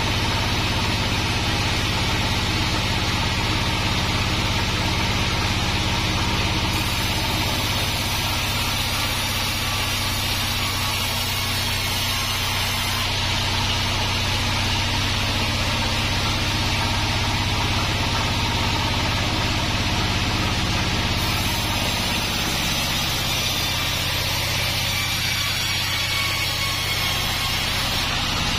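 Large band sawmill running steadily, belt-driven by a stationary engine, as a log on the carriage is fed through the blade.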